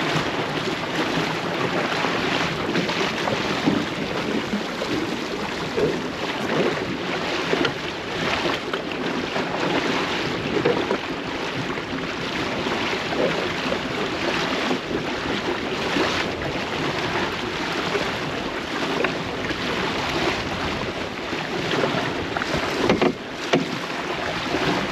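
Water splashing and slapping against a small boat's hull as it moves, with wind buffeting the microphone.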